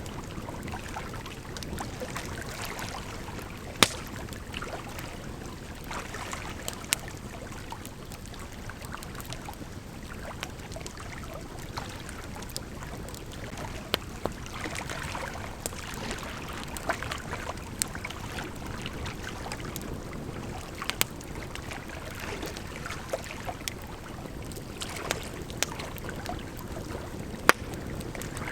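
Campfire crackling, with irregular sharp pops (two louder ones, about four seconds in and near the end), over the steady rush of a gently flowing river.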